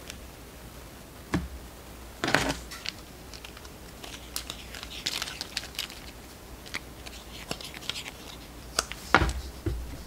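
Handling noises from hand embroidery work: rustling of cloth and thread with scattered small clicks and ticks, and a few knocks against the wooden tabletop. The loudest are a rustling burst just after two seconds and a pair of knocks about nine seconds in.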